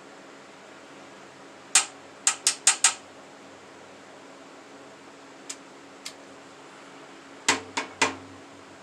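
Sharp metallic clicks and clinks from handling a Dan Wesson .357 CO2 revolver replica. There is a quick run of five about two seconds in, two faint ones, then three more with a dull knock near the end.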